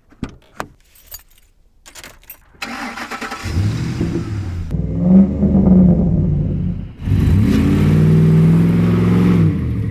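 Ford F-150 pickup being started: a few clicks and key jingles, then the engine cranks and catches about two and a half seconds in and is revved, rising and falling, with a second higher rev held for about two seconds near the end.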